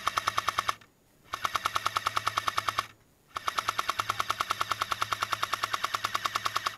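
Airsoft M60 light machine gun firing full-auto at about eleven shots a second, in three bursts. The first burst is already running and stops just under a second in, a second lasts about a second and a half, and a long third burst runs about three and a half seconds before cutting off near the end.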